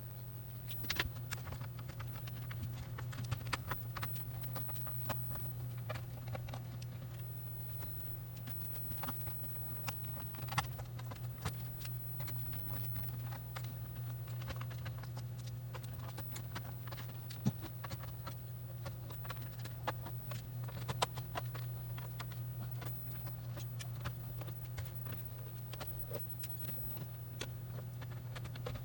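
Scattered small clicks and taps of a screwdriver and screws against a PlayStation 5 console being taken apart, over a steady low hum.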